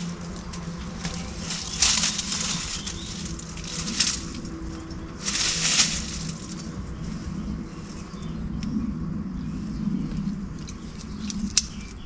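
An ATV's electric winch running steadily, winding in its line to draw the hammock tight, with a few short bursts of rustling noise.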